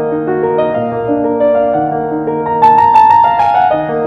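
Piano or keyboard music: a gentle melody of sustained notes with chords underneath, a brighter run of high notes about two and a half seconds in.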